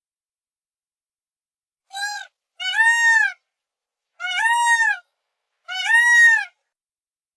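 Peacock calling: four loud calls, a short one about two seconds in, then three longer ones about a second and a half apart, each rising and then falling in pitch.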